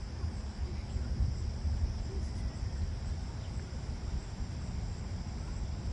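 Wind buffeting the microphone with an uneven low rumble, over a steady high-pitched chorus of crickets.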